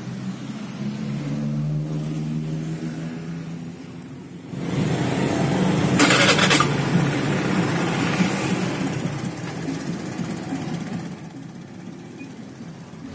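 Honda Scoopy FI scooter's single-cylinder engine running, swelling sharply about four and a half seconds in as the throttle is opened, then easing back down toward idle.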